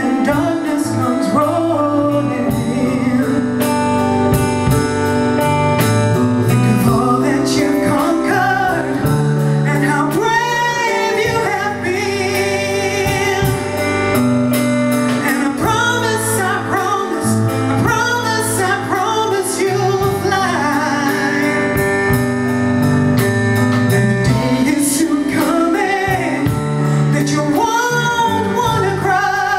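Live soul band: a woman singing lead, her held notes wavering in vibrato, over electric guitar, electric bass and a drum kit.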